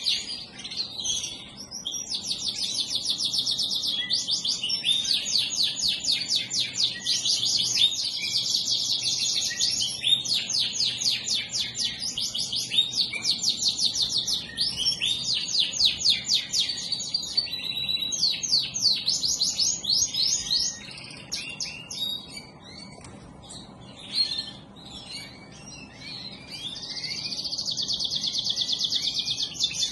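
Canaries singing: long, fast trills and rolling phrases of rapidly repeated notes with short breaks, going quieter about two-thirds of the way through before one steady trill near the end.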